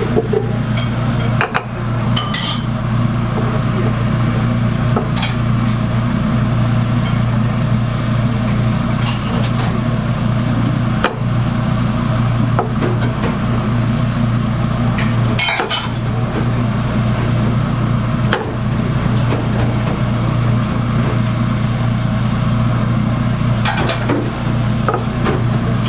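Metal cooking utensils clinking and scraping against a pan now and then, over a steady loud low hum.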